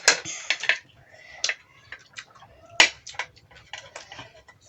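Eating sounds close to the microphone: irregular sharp clicks and crisp crunches while food is chewed.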